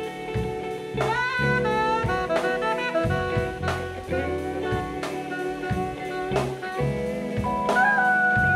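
A live jazz-funk band playing: drum kit, electric bass and keyboards under a saxophone lead line that bends and slides, ending on a long held high note near the end.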